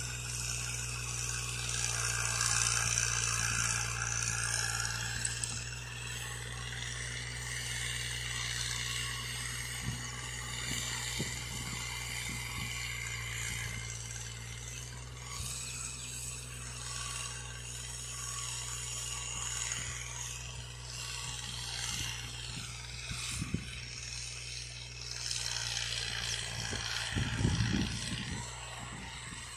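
Farm tractor engine running steadily under load while pulling a cultivator through ploughed soil, a low even hum with a steady hiss above it. A few low bumps come near the end.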